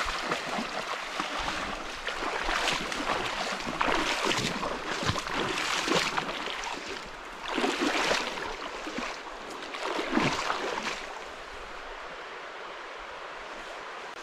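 Water splashing in a shallow stream crossing as a bike and rider go through it: several loud surges of splashing roughly two seconds apart, settling into a steadier rush of water near the end.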